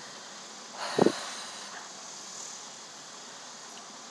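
A person eating with a full mouth of cheeseburger makes one short throaty mouth sound about a second in, over a faint steady background hiss.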